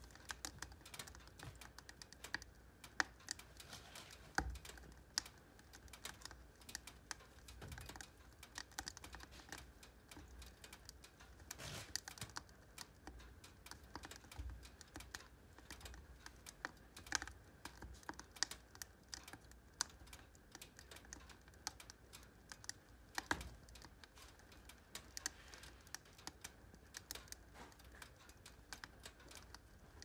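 Split logs burning in a woodstove, crackling faintly with irregular small ticks and pops and a handful of louder snaps.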